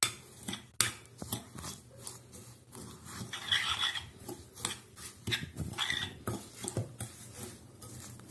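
A metal spoon stirring and scraping in a glass bowl, mixing crumbled lachha semai vermicelli with raw egg, coconut and sugar into a thick mixture. Irregular clinks and scrapes of the spoon against the glass, with longer scraping strokes about three seconds in and again about six seconds in.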